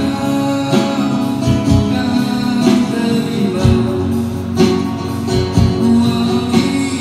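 Live acoustic guitar music, strummed and picked, with a steady run of sharp note attacks.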